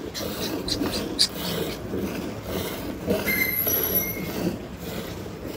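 Hand-milking a water buffalo: streams of milk squirting in quick, uneven strokes into a metal bucket of frothy milk. A brief high whistle sounds about three seconds in.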